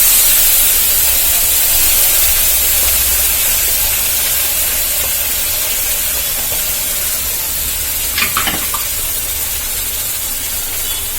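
Wet ground paste of tomato, ginger and garlic poured into hot sesame oil: a loud frying sizzle that starts suddenly and slowly dies down, with a couple of brief spoon clinks against the pan about eight seconds in.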